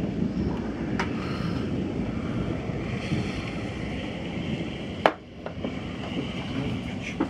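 Night thunderstorm noise: a continuous low, fluttering rumble of wind and storm. Sharp clicks come about a second in, about five seconds in (the loudest) and near the end.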